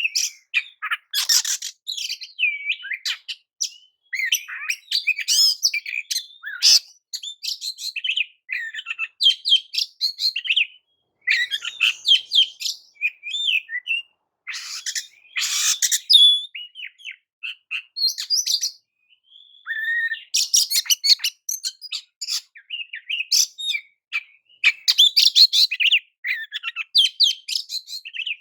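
Oriental magpie-robin (kacer) singing: a long run of rapid, varied whistled and chattering phrases broken by short pauses, with a few loud harsh notes, the loudest about halfway through.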